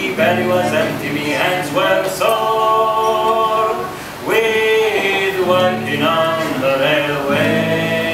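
A man and a woman singing a folk song together in harmony, holding long notes, over a strummed acoustic guitar.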